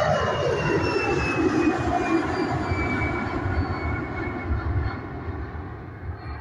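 Airbus A320 jet engines at takeoff thrust as the airliner climbs away: a deep rumble with a whine whose pitch falls steadily as the plane recedes, fading over the last couple of seconds.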